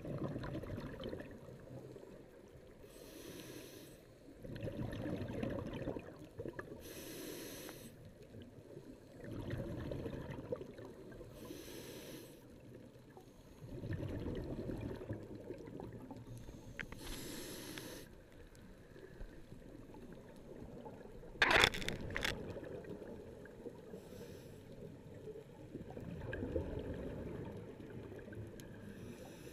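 Scuba diver breathing through a regulator underwater: a short hiss on each inhale, then a longer rush of exhaled bubbles, repeating about every four to five seconds. One brief, loud, sharp sound comes just past the middle.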